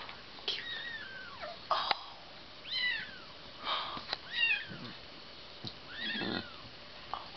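Newborn kitten mewing: several short, high-pitched cries that fall in pitch, with soft rustling and a few clicks between them.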